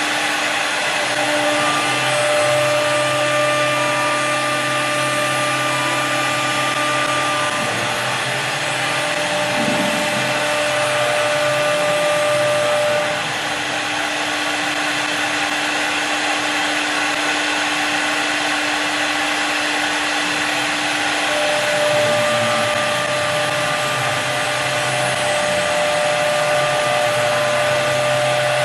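CNC wood turning lathe cutting twist grooves into a long wooden column: the spindle motor runs with a steady whine over the hiss of the cutter working the wood. Some of the motor tones drop out for several seconds midway and return.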